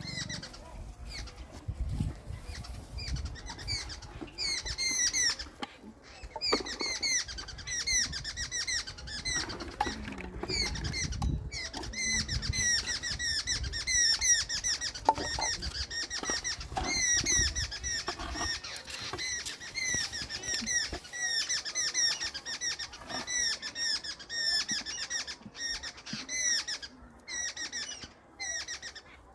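Small birds chirping: a dense, continuous run of short, high, quick chirps. A low rumble runs underneath for the first two-thirds and stops.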